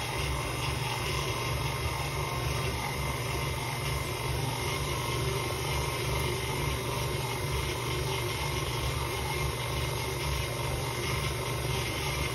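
KitchenAid stand mixer motor running steadily, its flat beater churning through thick cookie dough, with a low hum and a faint high whine.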